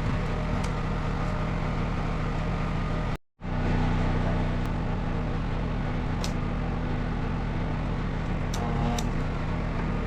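Portable generator engine running steadily under welding load. The sound cuts out abruptly for a moment a little over three seconds in, then resumes at the same level.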